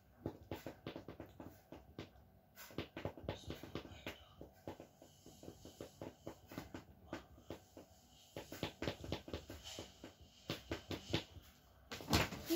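Irregular soft clicks and rustles, several a second, with a voice starting right at the end.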